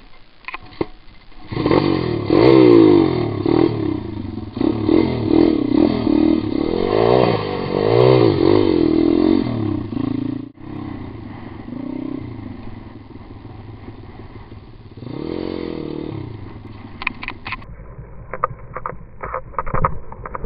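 Pit bike engine revving up and down hard on a dirt trail, then dropping suddenly about halfway to a quieter run with one more brief rev. Near the end comes a run of sharp knocks and clatter as the rider goes down on the dirt.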